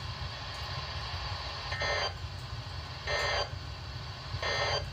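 NOAA Weather Radio SAME data bursts: three short raspy digital tone bursts about 1.3 s apart, the end-of-message code that closes a Required Weekly Test, heard through a radio receiver over a steady low hum.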